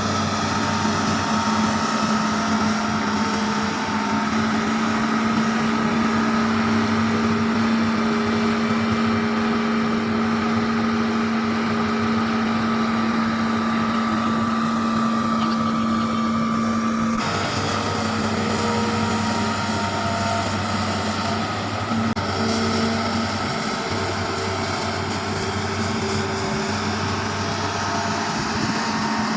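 Excavator's diesel engine running steadily with a constant hum, with a sudden break about two-thirds of the way through.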